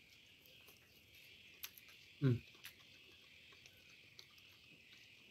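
Faint, steady insect chirring in the background, with one short 'mm' falling in pitch from the man eating about two seconds in and a few light clicks around it.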